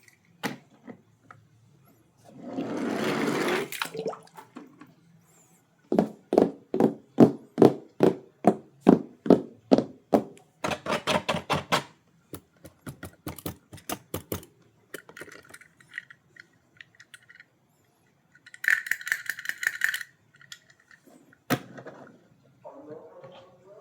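Handling of toy packaging and diecast toy cars: a short rustling rush, then a long run of sharp clicks about three a second, followed by scattered clicks and rattles.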